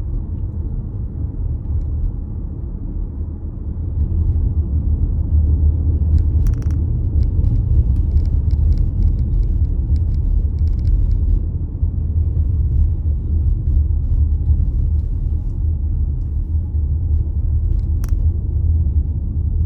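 Steady low road and engine rumble of a moving car, heard from inside the cabin, growing louder about four seconds in. A few faint clicks come through in the middle, and one sharp click near the end.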